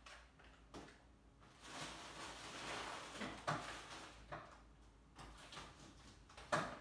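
Faint kitchen clatter: several scattered knocks and bumps, the loudest near the end, with a stretch of hissing noise from about two to three and a half seconds in.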